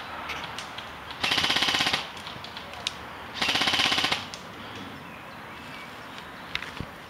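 Airsoft gun firing two rapid full-auto bursts, each under a second, about a second in and again near the middle, with a few faint single clicks between.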